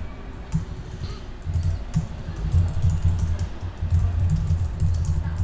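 Typing on a computer keyboard: quick, irregular key clicks over a low rumble.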